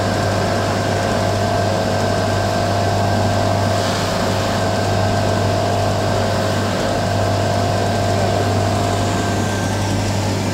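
Shoe repair machine's electric motor running steadily, spinning its brush and felt polishing wheels, with a constant low hum and a steady higher tone.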